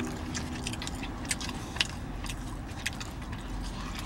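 Mouth-chewing sounds and a fork clicking and scraping irregularly against a plastic takeout bowl, over a low steady rumble.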